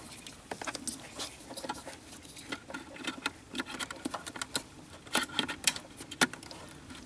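Plastic multi-pin plugs and wire bundles of a car's wiring harness being handled: an irregular run of light clicks and rustles as the plastic housings and cables knock and rub.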